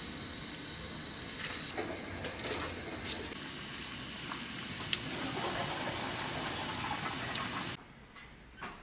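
Pot of stew boiling on the stove: a steady bubbling hiss with scattered small pops, cutting off suddenly near the end.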